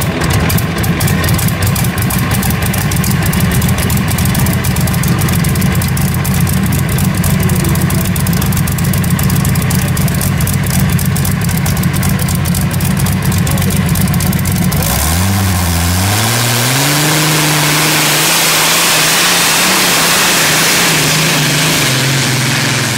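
Tractor-pulling tractor's big multi-cylinder engine with open exhaust stacks idling with a rapid, even firing beat. About two-thirds through it revs up sharply at the start of a pull and then runs flat out under load, loud and steady.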